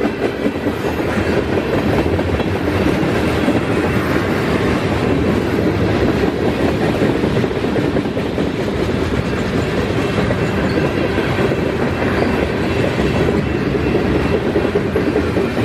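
Mixed freight train rolling past: the steady, loud rumble of steel wheels on the rails as tank cars, a boxcar and covered hopper cars go by.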